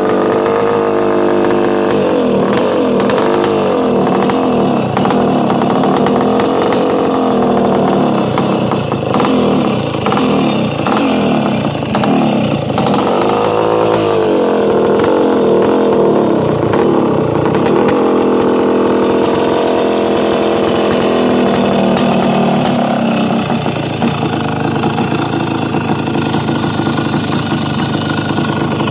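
Montesa VR360 motorcycle's 414cc big-bore single-cylinder two-stroke engine being revved up and down repeatedly, then settling to a steadier idle for roughly the last ten seconds.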